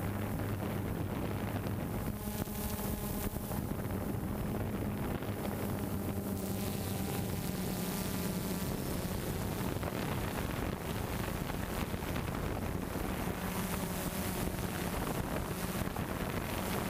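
DJI Phantom 2 Vision+ quadcopter's motors and propellers humming steadily, with wind noise on the microphone.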